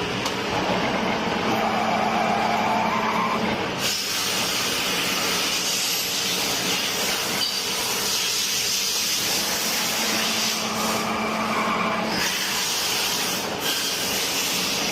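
Factory machinery running steadily with a constant hiss; a faint hum with a higher whine comes in twice, near the start and again later.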